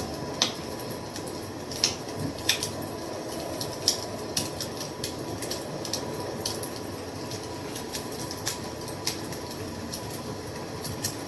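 Wood fire crackling: irregular sharp pops and snaps over a steady low rumble of the burning fire.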